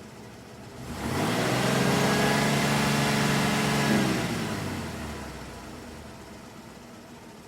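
Car engine passing by: the engine note swells in about a second in and holds loud for a few seconds. Its pitch then drops and it fades away.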